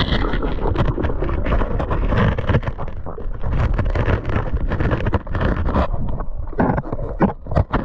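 Underwater sound through an action camera's waterproof housing: churning water noise thick with crackles and knocks, breaking up into separate knocks near the end.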